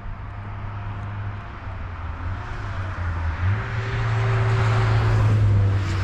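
A passing motor vehicle: a low engine hum under a rush of noise that builds to its loudest about five seconds in, then eases off.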